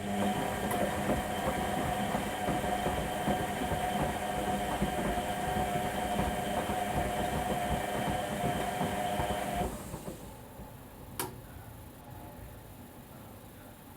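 Whirlpool Indiana 1400 washing machine turning its drum during a wash, the motor whining steadily over a rumble. It stops abruptly about ten seconds in, leaving a quieter hum, and a sharp click follows about a second later.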